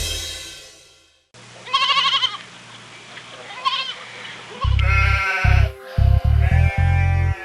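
The end of a children's song fades out, then a sheep bleats twice in short quavering calls. About five seconds in, backing music with a heavy bass beat starts, with more bleating over it.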